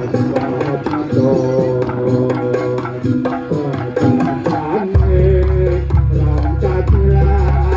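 Javanese jaranan-style folk music played live: kendang hand drums beating under a melodic instrument line, with a deep sustained low tone coming in about five seconds in.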